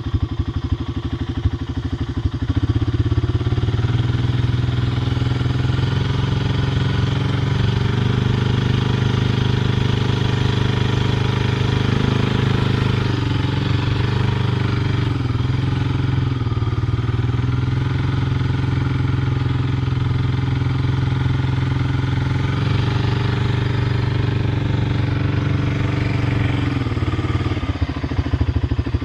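An engine running steadily, with its pitch dipping and recovering a couple of times.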